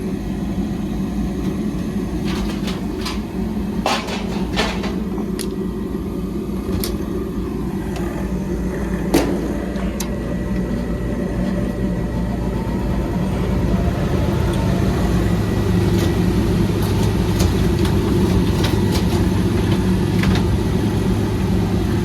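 Propane-fired furnace running with a steady low mechanical hum that grows louder about two-thirds of the way through, with scattered clicks and knocks; to the technician it doesn't sound right.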